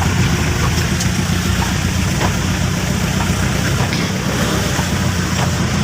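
Motor vehicle engine running steadily while driving, with a low, pulsing rumble under constant road and wind hiss.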